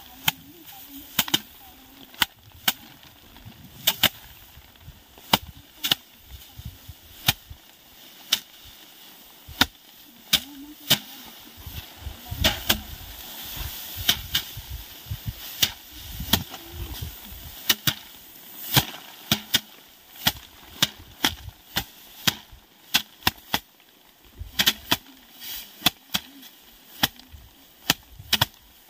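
Hand-threshing rice: sheaves of harvested rice beaten against a wooden board, sharp thwacks at an uneven pace, roughly one or two a second, from more than one thresher.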